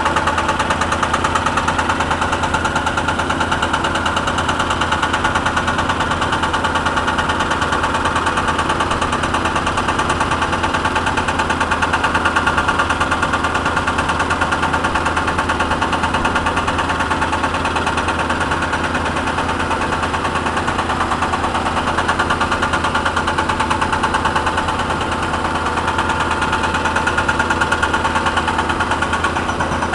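Hydraulic breaker hammer on a Cat 320 excavator pounding with rapid, steady blows over the excavator's running diesel engine.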